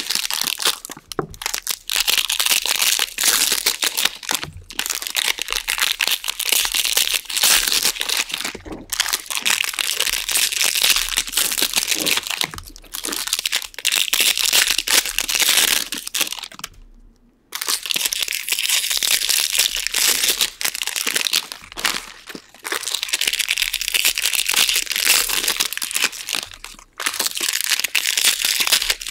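Foil wrappers of jumbo baseball-card packs being torn open and crinkled, with cards handled in between. The crinkling runs almost without pause, stopping briefly a little past halfway.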